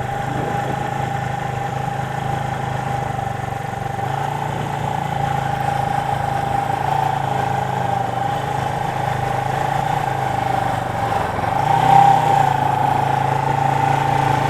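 1977 Suzuki GS400's two-cylinder engine running at a steady cruising speed, with a short rise in revs about twelve seconds in.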